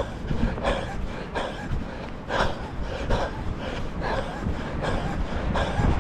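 A runner's heavy, rhythmic breathing, about one breath every three-quarters of a second, over wind rumbling on the microphone.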